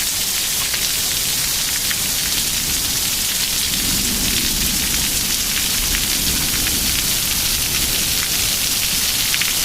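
Torrential rain in a severe thunderstorm, pouring down with quarter-size hail and gusting wind. It is a dense, steady hiss dotted with many small sharp ticks from the hits, over a low rumble of wind.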